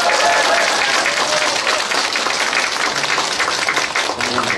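Audience applauding: a room full of people clapping steadily, with a few voices mixed in near the start.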